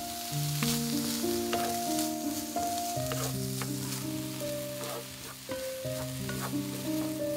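Diced ham sizzling in a hot stainless frying pan while it is stirred, with wooden tongs clicking against the pan now and then. Soft piano music plays underneath.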